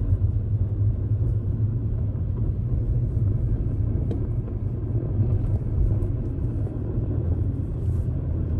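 Steady low rumble of a moving car: engine and tyre noise on the road.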